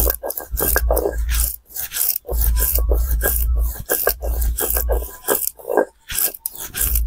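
Stone roller scraping back and forth over a grooved stone grinding slab (sil-batta), wet-grinding soaked rice and urad dal into batter by hand, in repeated rasping strokes. The strokes pause briefly about a second and a half in.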